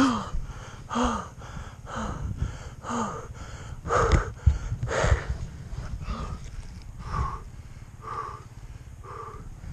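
A person breathing hard and gasping for air, about one heavy breath a second. The first few breaths have a short voiced catch, and the breaths grow softer in the second half.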